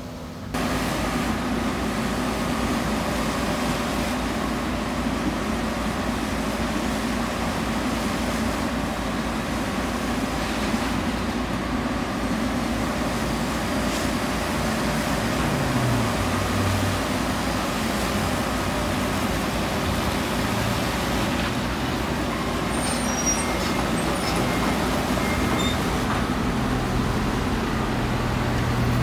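Diesel locomotive engine of a work train running steadily, its low drone shifting in pitch about halfway through.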